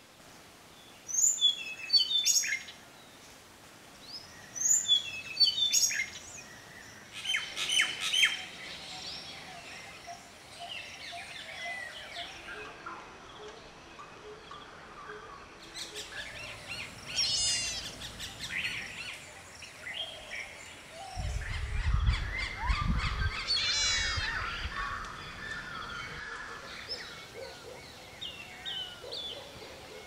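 Birdsong from several wild birds: short phrases of high chirping notes every few seconds, and twice a fast run of notes sliding downward. A brief low rumble comes near the middle.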